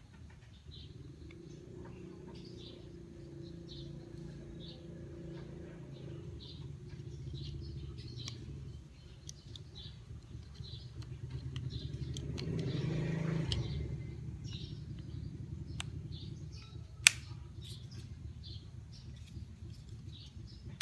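Small birds chirping over and over over a steady low rumble, with a single sharp click late on.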